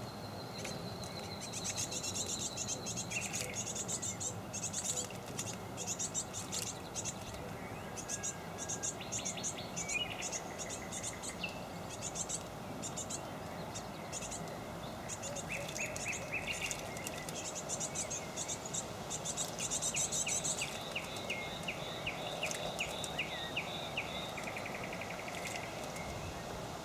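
Small songbirds chirping and calling, with bursts of high thin chirps and, about halfway through, rapid trilled series, over a steady low background noise.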